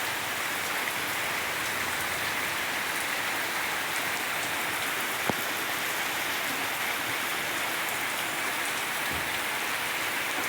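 Steady heavy rain falling and pattering on surfaces, with one sharp tick of a drop or drip about five seconds in.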